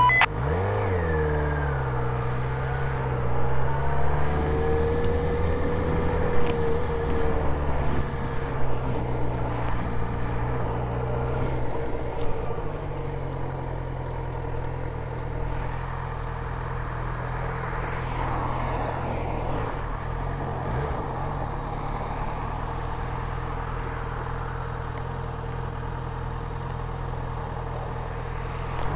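Motorcycle engine running at low riding speed, its pitch rising and falling with the throttle through the first twelve seconds or so, then holding steadier and a little quieter.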